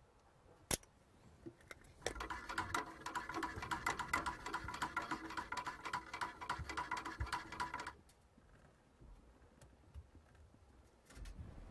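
Metal spoon stirring fast in a small metal coffee pot, a dense clinking and scraping with a light ringing, running for about six seconds and stopping abruptly; a single sharp clink comes just before it.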